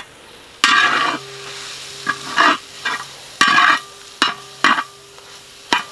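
A flat metal spatula scraping and stirring onions, tomato and spice powders around a wide metal pan, in about six short strokes. The masala fries in oil between the strokes.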